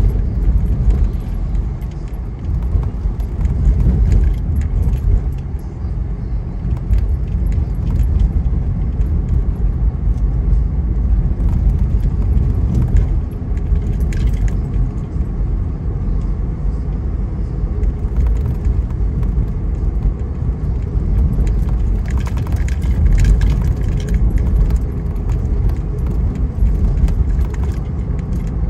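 A car driving: a steady low road and engine rumble, with light jingling rattles now and then, clustered about halfway through and again a little later.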